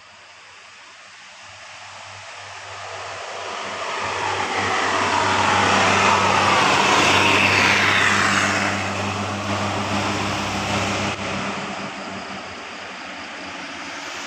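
A bus passing by: engine hum and tyre noise swell over several seconds, are loudest around the middle, then fade away.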